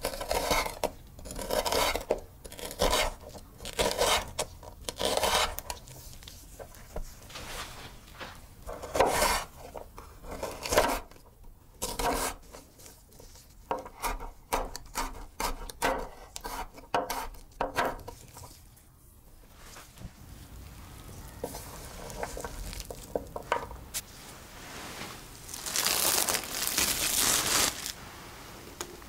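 A chef's knife cutting a red bell pepper on a wooden cutting board: separate slicing strokes at first, then quicker, denser chops as the pepper is diced. Near the end comes a couple of seconds of steady rushing noise.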